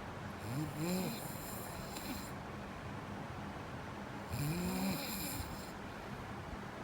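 Snoring: two snores about four seconds apart, each with a pitch that rises and then falls.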